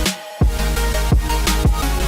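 Background music: a track with a heavy bass line and a steady drum beat, the bass dropping out briefly just after the start.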